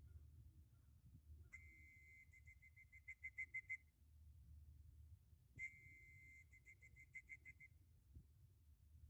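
Electronic beeper of a pigeon loft's timing system, faint. It sounds twice, each time a long high beep breaking into a quick run of short beeps, as arriving racing pigeons are clocked in.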